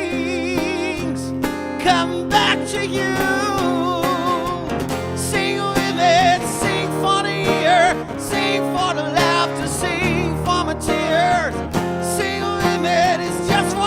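A band playing guitar-led music with a singer, some held notes wavering in pitch.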